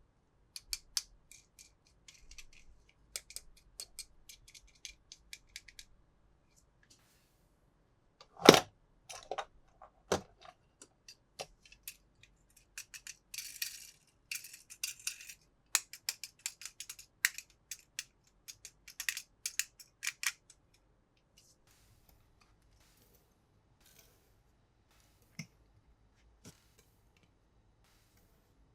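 Small plastic clicks and taps from toys and packaging being handled. There is one louder knock about eight seconds in and a short crinkling stretch in the middle, and the clicks thin out in the last third.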